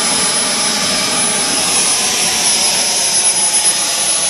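Wren miniature gas-turbine jet engine running steadily in a model Bluebird hydroplane: a constant high whistle over a loud rushing hiss.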